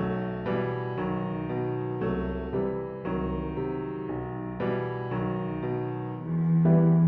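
Slow, gentle instrumental background music: piano chords with low bowed strings, a deep bass note coming in near the end.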